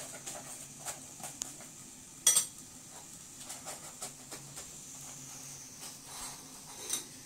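Spoon and hand scraping and tapping on a ceramic plate while spreading ghee over a chapati, with light clinks throughout and one louder clatter a little over two seconds in.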